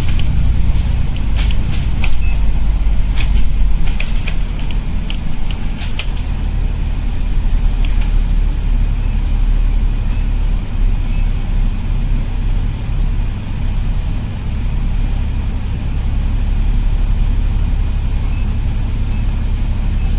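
Steady low rumble, with a few sharp clicks in the first eight seconds.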